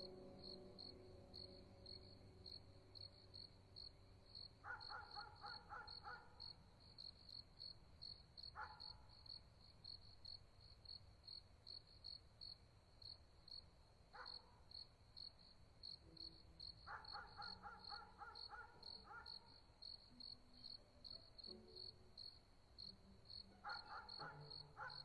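Faint cricket chirping steadily, about two to three high chirps a second, with a few short runs of rapid calls from another animal breaking in now and then.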